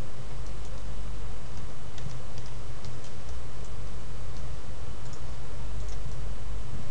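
Computer mouse clicking: scattered light, irregular clicks over a steady low hum.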